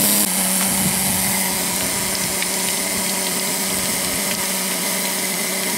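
Steady hiss of steam escaping from a 1½-inch-scale live-steam Pacific locomotive, with a low steady hum underneath.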